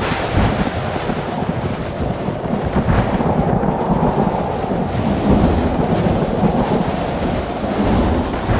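Thunder sound effect: a sharp crack at the start, then a continuous deep rumble rolling on.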